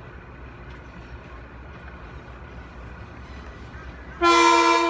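Metro-North electric commuter train approaching with a low steady rumble, then a loud horn blast starting about four seconds in.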